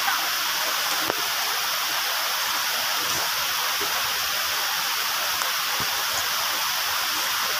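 Steady rushing hiss of the Ganges river's water, with a faint click about a second in.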